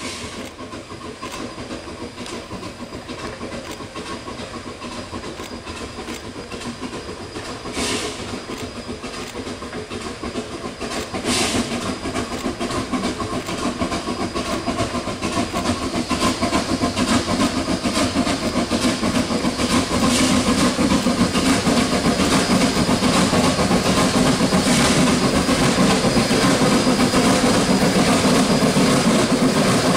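Shay geared steam locomotive No. 4 of the Cass Scenic Railroad working hard up grade, its exhaust chuffing in a fast, steady beat that grows steadily louder as it approaches. Two short sharp sounds stand out, about eight and eleven seconds in.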